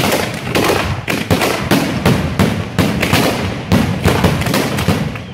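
Consumer aerial firework shells bursting in a rapid, continuous barrage, about three sharp bangs a second, in a fireworks finale.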